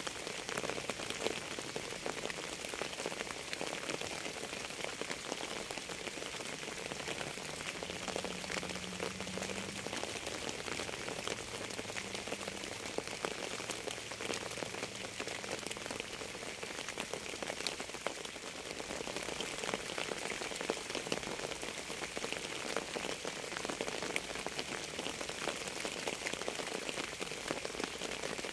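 Steady rain falling on a surface, a dense, even hiss of many small drop impacts, with no change in strength.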